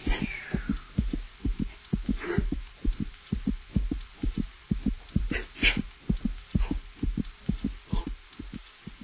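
A heartbeat sound effect: steady low lub-dub thumps, several a second, fading away at the end. A falling swish opens it and a few brief higher swishes come in the middle.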